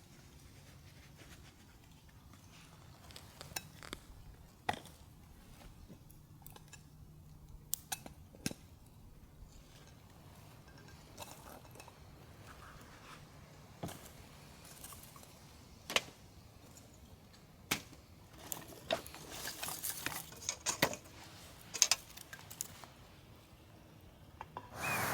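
Light clinks and knocks of camp cookware and utensils being handled, scattered at first and coming in a quicker cluster in the last few seconds.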